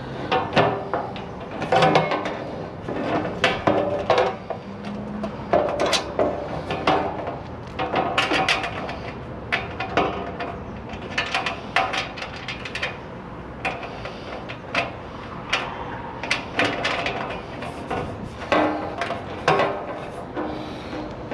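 Irregular knocks, clicks and clatter as the raised garden bed's corner pieces, trim and panels are handled and screwed together, some knocks ringing briefly.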